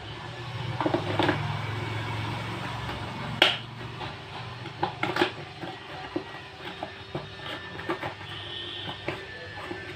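Hands handling a phone and its packaging: scattered clicks and taps, with one sharp snap about three and a half seconds in, over a low steady hum.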